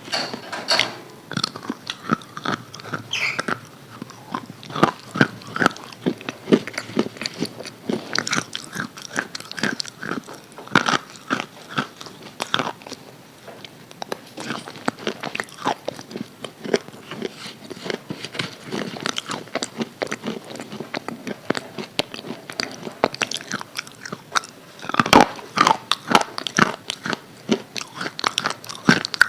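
Close-up biting and chewing of crispy KFC fried chicken: irregular crunches and crackles of the breading, with a busier run of crunching near the end.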